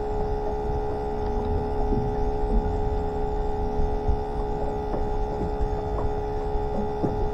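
Bait tank aerator pump giving a steady electric whine, one strong tone with several overtones, over a low rumble and a few faint knocks.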